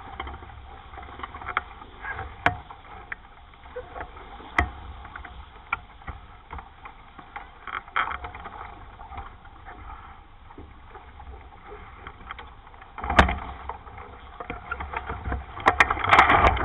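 Water rushing and splashing along the hull of a 420 sailing dinghy under way, with wind rumbling on the microphone and occasional sharp knocks; the splashing swells and the knocks come thick near the end.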